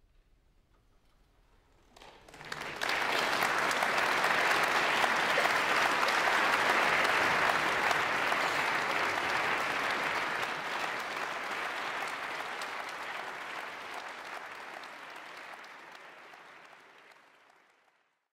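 Audience applauding: the clapping breaks out about two seconds in, swells quickly to full strength, then slowly dies away until it stops near the end.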